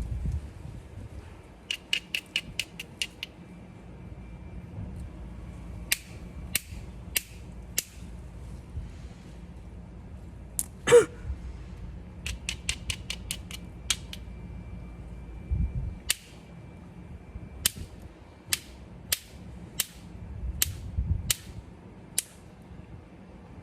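Obsidian being knapped into a stone tool: sharp clicks as flakes are struck off, some in quick runs and some singly about half a second apart, with one louder, ringing strike about eleven seconds in.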